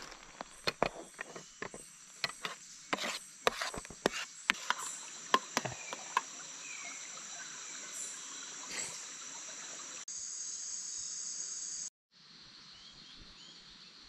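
A metal spoon clicks and scrapes against a metal mess tin of rice in quick, irregular taps over the first six seconds, over a steady high buzz of rainforest insects. About ten seconds in, the insect buzz grows louder, breaks off sharply, and returns quieter.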